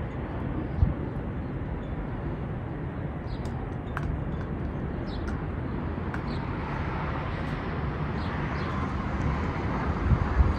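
Outdoor ambience: a steady low rumble with a few faint, short high chirps, and a rushing noise that swells through the second half.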